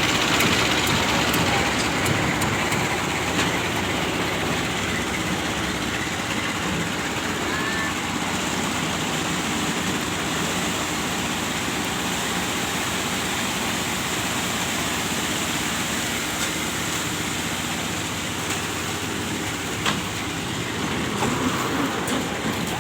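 A small engine powering construction machinery for a concrete pour runs steadily, with a couple of faint knocks near the end.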